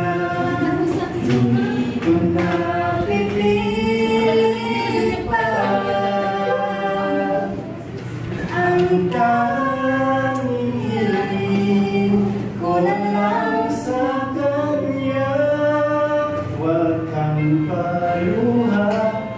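A woman and a man singing a slow ballad together as a duet, with long, held sung lines.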